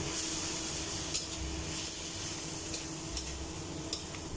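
Napa cabbage and chicken sizzling in a steel wok while a metal spatula stirs and scrapes through them, with a few sharp clinks of the spatula on the pan.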